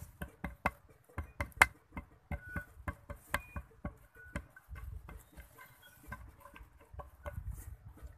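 A small hand-held lump being rapped against a weathered wooden plank, giving a run of irregular sharp knocks that are thickest in the first few seconds. The loudest knock comes about a second and a half in.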